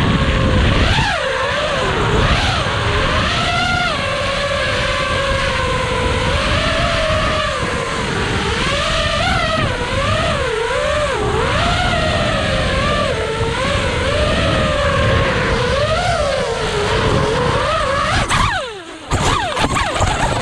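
FPV racing quadcopter's brushless motors and propellers whining, the pitch rising and falling constantly with the throttle, over rushing air noise. Near the end the whine drops away and falls in pitch as the drone crashes.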